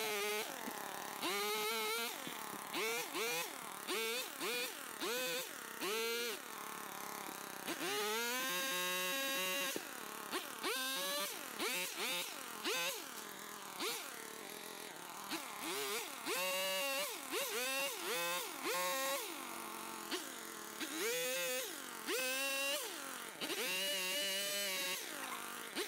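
Gas-powered pole saw revving up again and again as it cuts tree limbs. Some bursts are short and some are held for a couple of seconds, and between them it drops back to idle.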